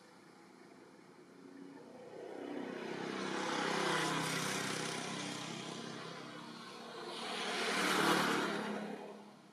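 Motor vehicles passing by: engine and tyre noise builds to a peak about four seconds in, eases, then swells to a louder second peak near the end before fading away.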